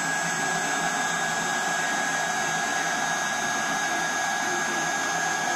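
CNC router spindle running with a steady high whine while its bit cuts into a wooden workpiece.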